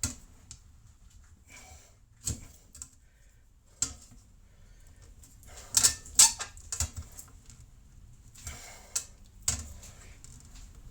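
Irregular sharp knocks and clicks of hard objects being handled, a few seconds apart, with a quick cluster of several about halfway through.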